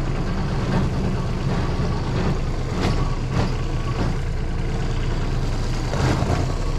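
Kubota micro excavator's diesel engine running steadily, with a few short clanks as the machine moves.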